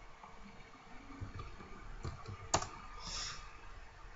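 Faint clicking from a computer keyboard: three clicks close together about two seconds in, the last the loudest, over a low steady room hum. A brief soft hiss follows just after.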